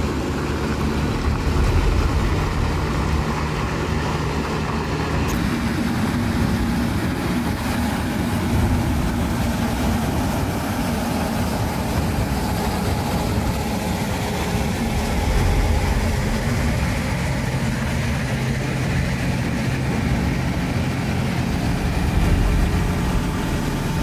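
Heavy diesel truck engines of a heavy-haul convoy running at low speed, a steady low drone. The tractor units include a camouflaged military eight-wheel tractor.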